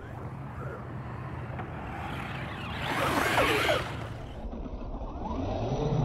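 RC truck (Arrma Senton 3S BLX) brushless electric motor whining as it drives hard over sand on rear paddle tires, rising and falling in pitch. It is loudest a little past midway, where a hiss of flung sand joins it.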